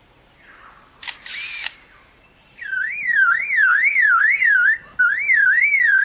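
Superb lyrebird mimicking man-made sounds. About a second in comes a brief mechanical whirr, its copy of a camera's motor drive. From about halfway through, a loud car-alarm warble rises and falls about twice a second, broken once by a short gap.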